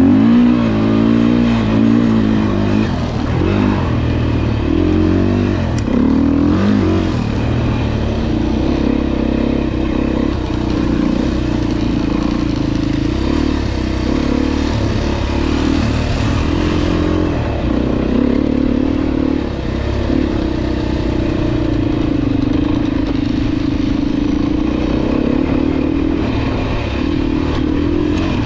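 Single-cylinder four-stroke dirt bike engine under way off-road, revs rising and falling repeatedly in the first several seconds as the throttle is worked, then running steadier with brief dips, over rattle and wind noise.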